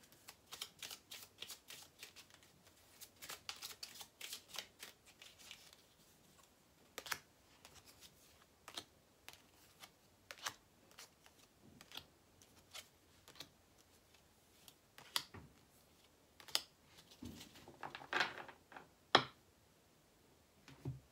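A deck of tarot cards being shuffled by hand: a quick run of light card clicks over the first few seconds, then scattered single flicks and taps.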